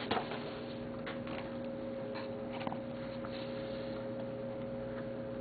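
A steady low electrical hum with a few faint, scattered clicks and light taps.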